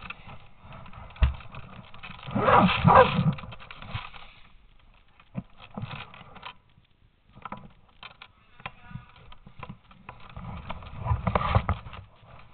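Footsteps scuffing and crunching on a debris-strewn tile floor, with rustling from clothing and gear, in two louder flurries: one about two seconds in and one near the end.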